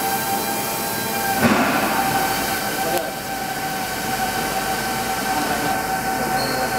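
Steady hum of running machine-shop equipment carrying a few constant whining tones, with a short clatter about a second and a half in.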